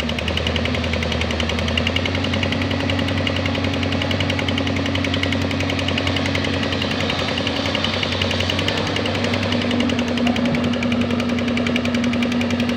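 Doosan DX220 excavator's diesel engine running steadily with a rapid, even clatter; its pitch shifts slightly about two seconds in and again near nine seconds.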